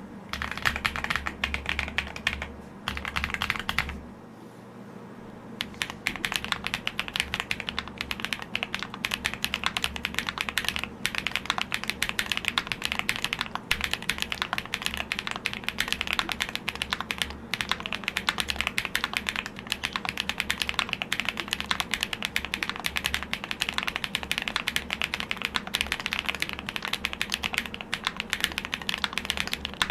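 Steady, fast typing on a GrayStudio Space80 mechanical keyboard with soldered tungsten steel switches on an FR4 plate and AMK8008 keycaps. It is a dense run of crisp keystrokes, with a brief pause about four seconds in.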